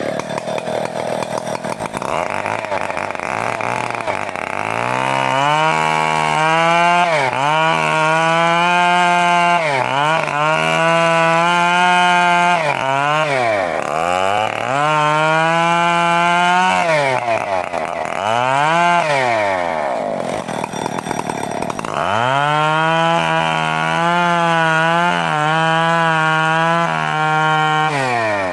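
Stihl 070 two-stroke chainsaw cutting teak wood. It idles at first, then runs at full throttle in stretches of two to three seconds, dropping back to idle between them, and ends on a longer full-throttle run.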